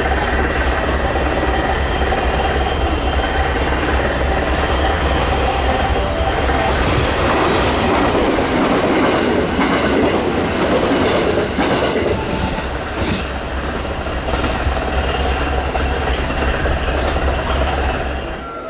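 Electric passenger train passing through a station at speed without stopping: steady rumble of the cars with wheels clattering over the rail joints. It falls away sharply just before the end as the train clears.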